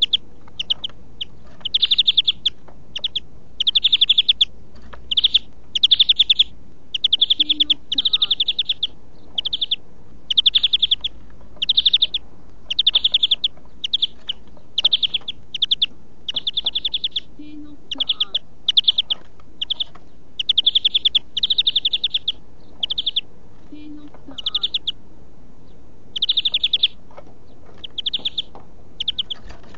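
European greenfinch (Carduelis chloris) singing: a long string of rapid, trilled phrases, each under a second long, repeated with short gaps between them.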